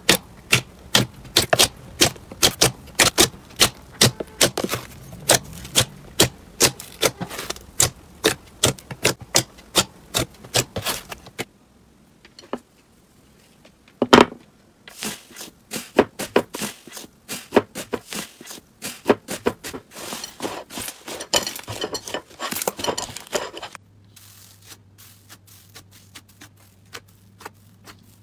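Hands kneading and poking slime, giving rapid sharp clicks and pops, several a second. After a short pause comes one loud crack as the gold foil covering a bowl of slime is broken, then crackling for several seconds. The sound turns much fainter near the end as a black slime is pressed.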